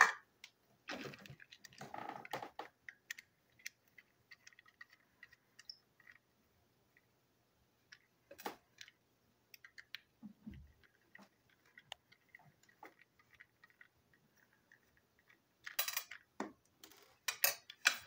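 Small screwdriver and fingers working on a plastic TrackMaster toy train van, removing the screws from its underside: scattered light clicks and scrapes of plastic and metal. A cluster of sharper clicks comes near the end as the van and the screwdriver are set down on the table.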